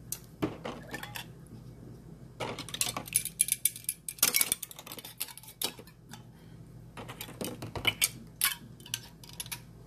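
Metal kitchen utensils and canning hardware clinking and clattering in irregular bursts as they are handled, over a faint steady low hum.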